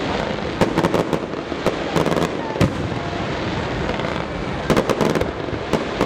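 Aerial fireworks going off: clusters of sharp cracks and bangs, with one heavier bang about two and a half seconds in, over a steady crackling rumble.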